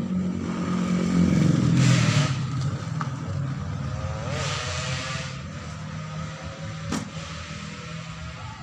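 A motor running with a low hum that rises in pitch about a second in and then holds steady, with two brief hissing rushes and a single sharp click near the end.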